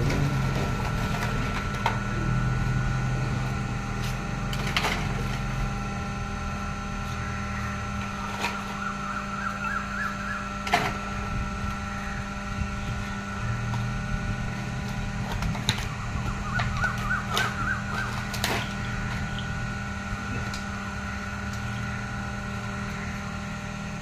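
Hydraulic waste baler's power pack humming steadily while plastic waste is loaded into its chamber, with about five sharp knocks and clatters from the loading.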